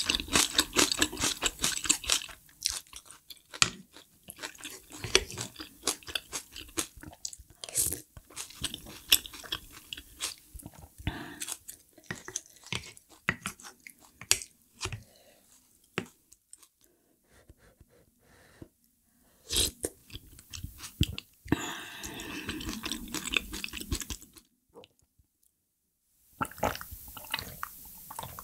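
A person chewing food close to the microphone with crisp, crackly crunching. The crunches come thick for the first couple of seconds, then more sparsely with short pauses.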